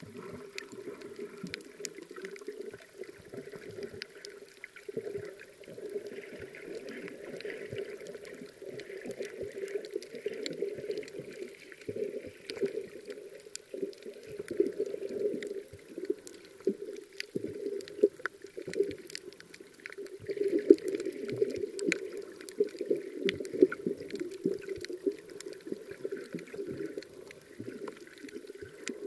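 Muffled underwater noise heard through a camera's waterproof housing: a steady, swelling and fading low wash of moving water, with scattered faint clicks and crackles.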